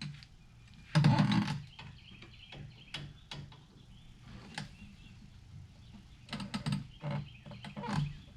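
Hand tools clicking and clinking against the brake hardware, with a louder rough clatter about a second in and a run of clicks near the end.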